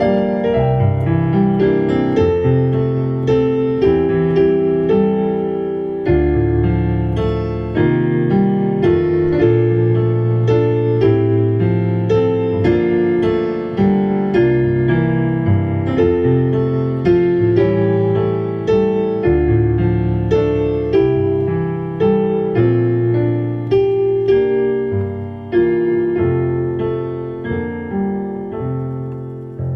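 Solo piano playing a slow worship-song melody, chords and melody notes over long held bass notes. Near the end the playing thins out and the last notes die away.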